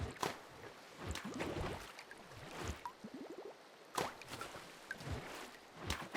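Water splashing and dripping in irregular plops and gurgles, with a few small rising bubble chirps; the strongest splashes come at the start, about four seconds in, and near the end.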